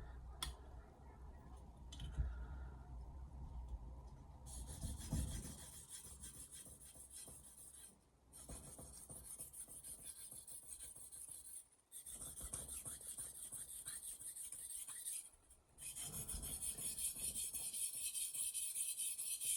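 Steel blade of a Misono 210 mm Japanese knife being stroked back and forth across a wet whetstone: a rasping scrape that starts about four seconds in and comes in runs of three to four seconds with brief pauses between.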